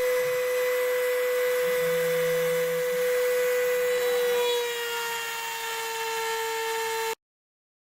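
Mini CNC machine's small spindle motor running with a steady whine, its pitch sagging slightly about four and a half seconds in. It cuts off abruptly about seven seconds in.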